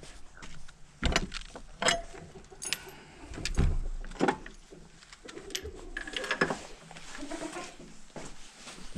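A rusty metal hasp and chain on a wooden shed door clinking and rattling as the door is unlatched and opened, with about five sharp knocks in the first few seconds.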